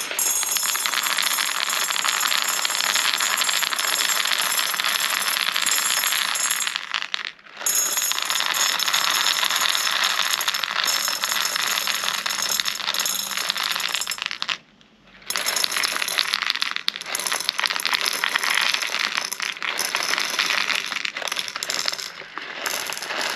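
A batch of plastic 6 mm airsoft BBs rattling and clattering around in a BB sizing gauge with graded holes as it is shaken, sorting the BBs by diameter. The rattle runs in long spells, breaking off briefly about seven seconds in and again about halfway through.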